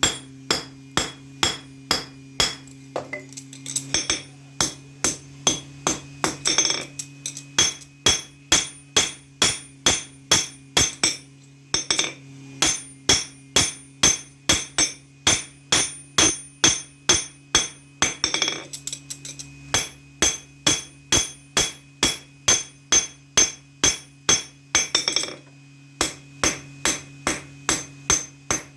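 Hammer striking metal on an anvil, in a steady rhythm of about two ringing blows a second, with brief pauses about every six to seven seconds, over a steady low hum. This is typical of hand-forging a knife blade.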